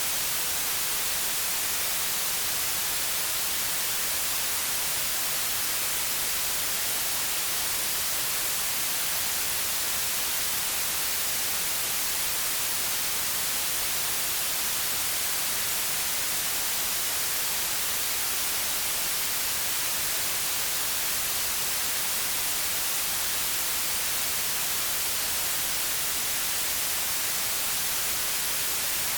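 Steady white noise: an even, unbroken hiss, brightest in the high frequencies.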